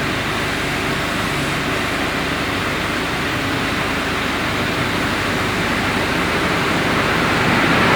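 Chevrolet Onix 1.4 four-cylinder engine idling, a steady even hum that grows slightly louder near the end. The engine is running smoothly on a freshly fitted timing belt.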